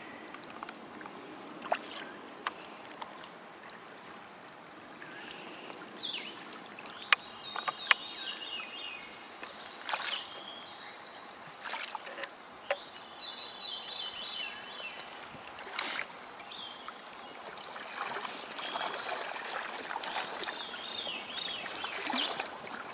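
Creek water running steadily, with scattered splashes and a few sharp clicks as a brown trout is handled in the shallows.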